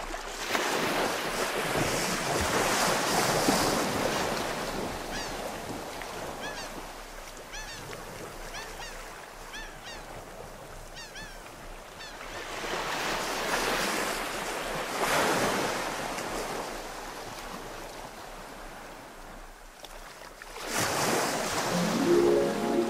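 Sea surf breaking on a beach: three swells of rushing water rise and fall, with quieter lulls between them. Short high chirps sound repeatedly in the first lull, and music comes in near the end.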